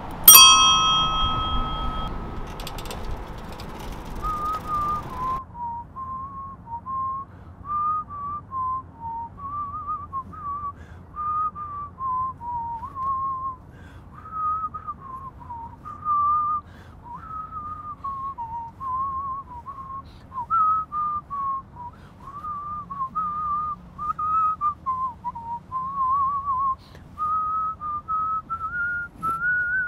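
A bicycle bell, a dome-shaped bell on the handlebar, rings once at the start and its tone dies away over about two seconds. Then a whistled tune plays: a single clear, wavering melody that carries on to the end and climbs a little higher near the end.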